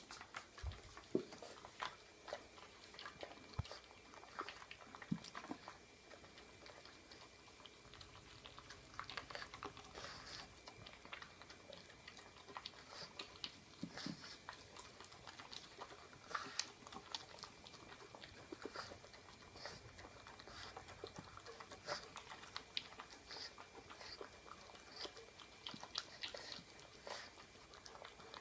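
Pug puppy gobbling food from a stainless steel bowl. Faint, rapid chewing and crunching, with many small clicks scattered throughout.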